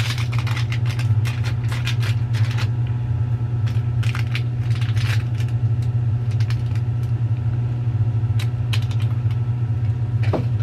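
Plastic packaging of an instant cup ramen and its seasoning packets crinkling and clicking in bursts as it is handled and opened, over a steady low hum.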